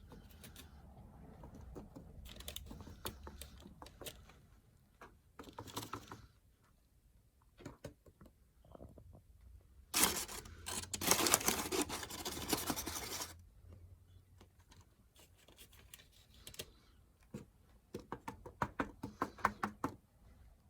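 Soft kitchen handling noises as cornstarch is sprinkled over sweet potato fries on a wax-paper-lined baking pan. Scattered faint rustles and ticks, a louder rustling for about three seconds midway, and a quick run of light taps near the end.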